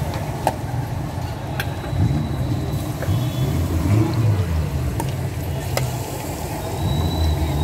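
Gas burners of a street-food stove roaring steadily under the pots as a low, fluttering rumble. Metal ladles clink against steel cooking pots a few times.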